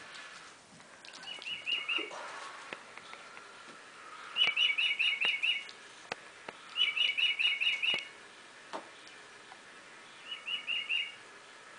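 Rapid, evenly repeated high chirps from an animal in four bursts of about a second each, with a few faint clicks between them.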